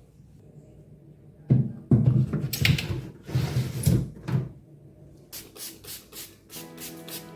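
Knocks and clatter of household items being handled, loud for about three seconds, followed by a quicker run of light clicks and taps.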